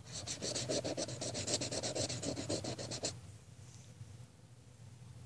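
Highlighter pen scribbling back and forth on paper in quick, even strokes, about ten a second, stopping about three seconds in.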